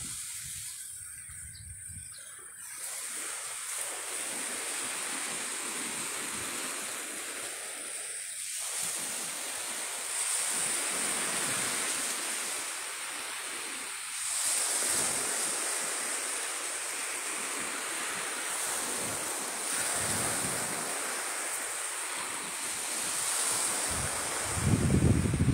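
Sea surf washing onto the beach: a steady hiss that swells every few seconds. Wind rumbles on the microphone near the end.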